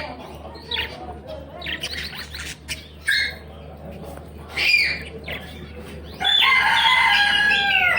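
Small caged birds chirping in short scattered calls, then about six seconds in a rooster crows loudly in one long call that falls in pitch at its end.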